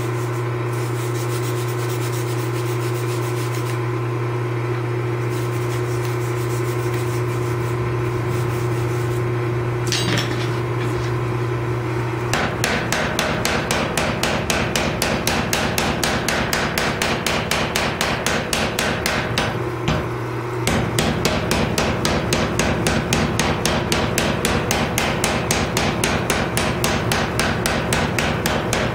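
Mechanical power hammer running. A steady hum fills the first twelve seconds, then about halfway in the ram starts striking a white-hot Damascus steel billet in rapid, evenly spaced blows, several a second. The blows stop briefly once, then go on.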